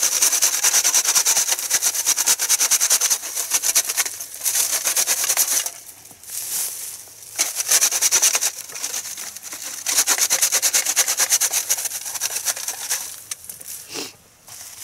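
Gloved hand rubbing dirt and leaf litter through the wire screen of a metal trap sifter, a rapid rasping scratch, to cover a buried foothold trap. It comes in several bursts of a second or more, with short pauses in between.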